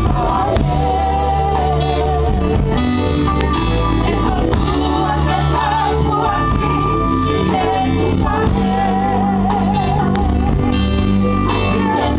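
A gospel vocal group singing a song with instrumental backing: held notes with vibrato over a steady bass line, with plucked guitar.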